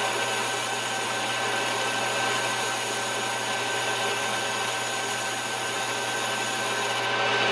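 Chinese combination mill-lathe running at a steady speed, its spindle turning the adapter back plate while a brazed carbide bit takes a light finishing cut across the face. A steady machine whine and hum with a hiss over it.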